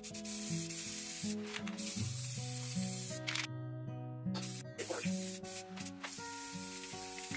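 Aerosol spray can hissing as primer is sprayed in long passes, stopping for about a second midway before spraying again.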